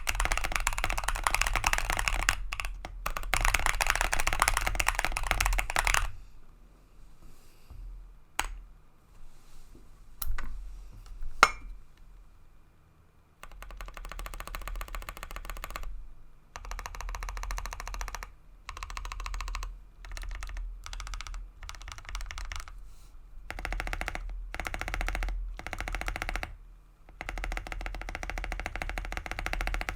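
Bakeneko 65 mechanical keyboard with lubed Gazzew Boba LT linear switches, tape-modded and PE-foamed, being typed on. Fast continuous typing gives way after about six seconds to a few scattered single key presses, one of them louder. Typing then resumes in bursts with short pauses.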